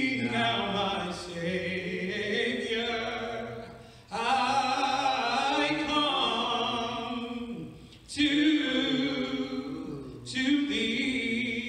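A man singing a slow hymn unaccompanied, in long, drawn-out phrases with a short break about every four seconds.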